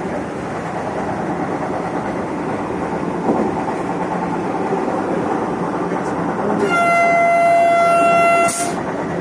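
Vande Bharat Express running at speed, heard from inside the driving cab: a steady rumble of wheels on rail, with a single knock about a third of the way in. About two-thirds in, the train's horn sounds one steady single-pitched blast of about two seconds, the loudest sound here, cutting off with a short burst.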